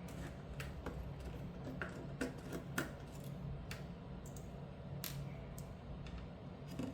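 Small irregular clicks and ticks of a screwdriver turning out the small screws that hold a graphics card's circuit board to its metal backplate, over a low steady hum.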